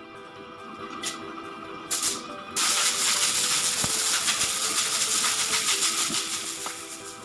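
A workshop power tool running: two short bursts, then a loud rasping hiss with a fast rattle for about four seconds, over background music.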